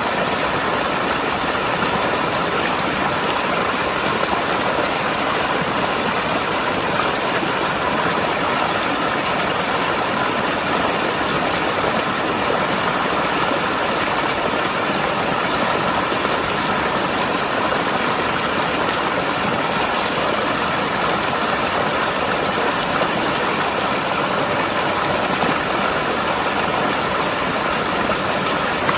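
Mountain river rushing and gurgling over rocks, a steady, even wash of water noise.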